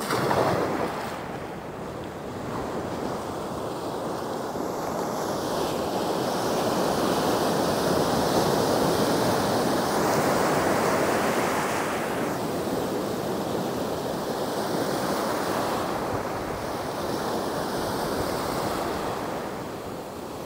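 Ocean surf breaking and washing up the sand at the shoreline, with wind on the microphone. The wash swells to its loudest about halfway through as a wave breaks, then eases off.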